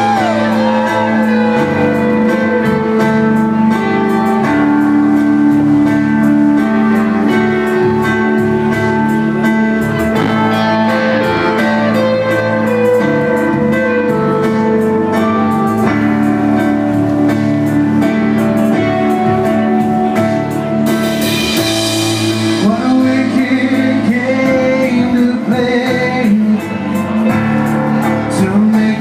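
Live rock band playing: electric guitar, keyboards and drums with a singing voice, heard amplified through the PA in a large room.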